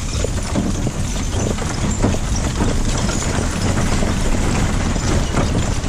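Horse-drawn stagecoach rolling along a dirt trail: a steady rumble and rattle from the wooden coach and its wheels, with the team's hooves clopping.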